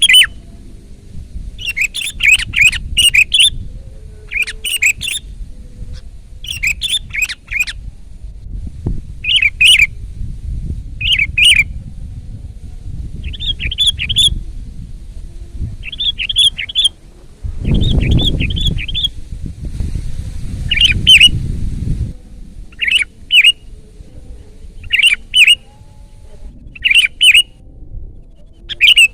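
Sooty-headed bulbul singing loudly: short chirpy phrases repeated every second or two. A low rumbling noise lies under the song and swells for a few seconds midway.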